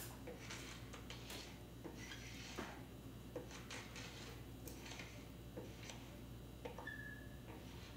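Carbide paint scraper pulled in short strokes across a painted wood-veneer dresser top, lifting off paint and old varnish: faint, irregular scrapes and ticks, with a brief high squeak about seven seconds in.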